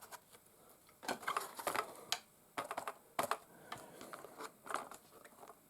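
Light clicks and rattles from handling a small plastic RC crawler truck, coming in irregular clusters from about a second in.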